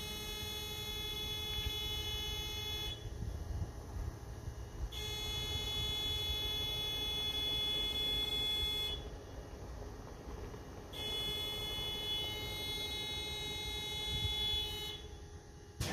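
A high-pitched warning buzzer on an EMD SD70LC diesel locomotive sounds in spells of about four seconds with two-second gaps, ahead of the engine being cranked, over a steady low rumble.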